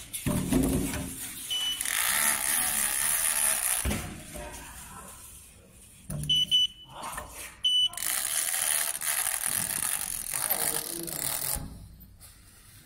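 Handheld large-character inkjet printer working across a steel drum lid in two print passes, each a steady hiss lasting a few seconds. A few short high beeps come from the printer around and between the passes.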